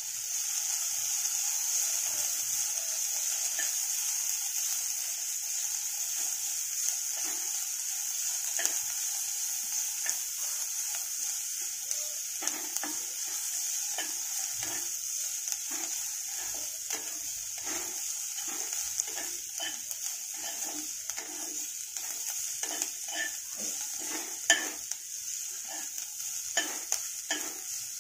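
Chopped onion sizzling in hot oil in a kadhai, with a spoon stirring and scraping against the pan. The stirring strokes come thick and fast in the second half, with one sharper knock of the spoon on the pan.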